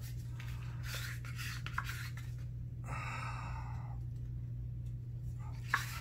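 Quiet handling of a plastic paint squeeze bottle in gloved hands while acrylic paint is drizzled, with light rubbing and a brief rasping hiss about three seconds in, over a steady low hum.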